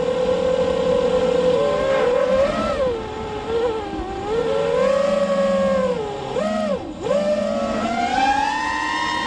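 Brushless motors and propellers of a 6-inch FPV quadcopter whining in flight, the pitch wandering up and down with the throttle. The pitch dips sharply twice about six and seven seconds in, then climbs steadily near the end.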